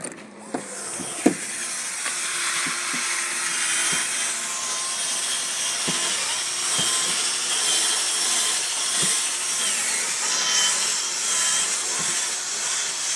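A car-cleaning machine running with a steady hissing rush that builds up over the first couple of seconds, with a few scattered knocks.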